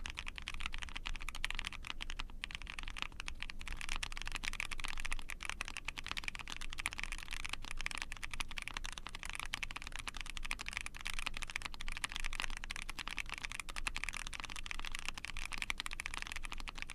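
Continuous fast typing on a mechanical keyboard with Invokeys Blueberry Chiffon prototype light tactile switches, a POM plate and GMK keycaps: a dense, even run of keystroke clacks.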